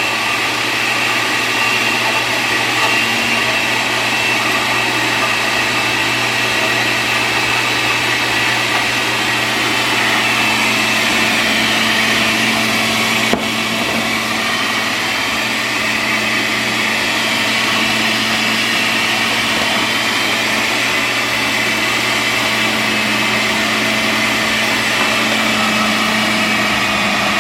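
Countertop blender motor running steadily at speed, blending a spinach, peach, grape and blueberry smoothie, with a sharp click about halfway through.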